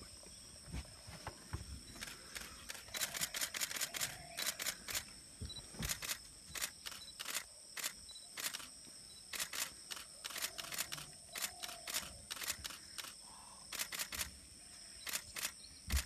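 Camera shutters clicking over and over, in single shots and in quick bursts of several clicks.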